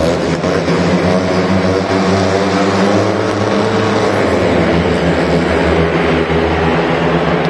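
Speedway motorcycles' single-cylinder engines revving at the start line, then accelerating hard off the start, their pitch rising for a couple of seconds before settling into a steady loud run.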